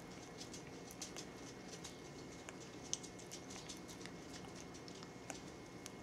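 African grey parrot nibbling a peeled banana, its beak making soft, irregular little clicks and wet smacks, with one sharper click about halfway through.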